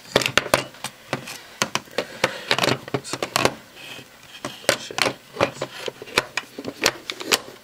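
An irregular run of clicks, taps and knocks as the plastic and metal parts of a disassembled Hudson Mad Max airsoft double-barrel shotgun are handled and fitted back together on a wooden table.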